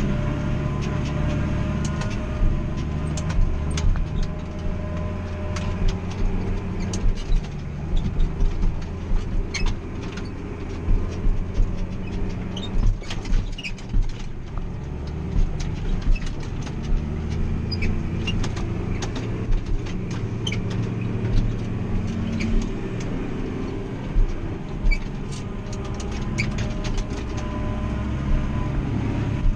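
Massey Ferguson 6485 tractor engine running steadily, heard from inside the closed cab, with the forage harvester running close alongside. Many short sharp knocks and rattles come through over the engine.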